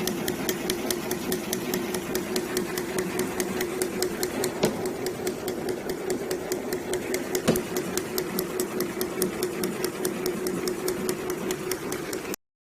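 Horizontal straw-packaging machine running: a steady hum with rapid, evenly spaced clicking several times a second from its cycling mechanism, and two louder knocks in the middle. The sound cuts off suddenly near the end.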